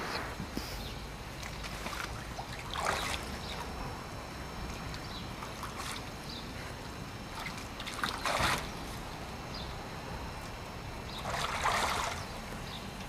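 Water splashing in short bursts, four times a few seconds apart, over a low steady rumble: Eurasian otters diving and surfacing in lake water.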